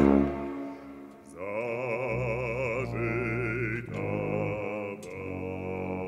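Operatic bass voice singing with wide vibrato to a brass quintet accompaniment. A loud held note fades away at the start, and after a short lull new sung phrases begin about a second and a half in.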